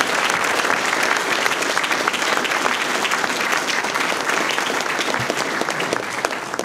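Audience applauding: dense, steady clapping that begins to thin out near the end.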